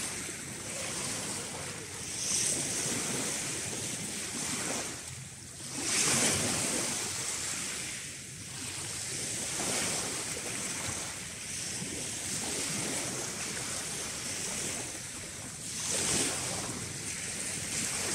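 Small waves breaking and washing over a shingle beach, surging and drawing back every few seconds, the biggest surges about a third of the way in and near the end.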